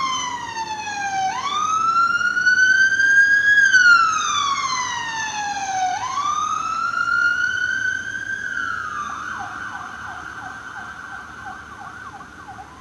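Electronic wailing siren sounding as the school fire alarm. It slowly sweeps down and back up in pitch for about two full cycles, then changes to a fast warbling pattern and fades out near the end.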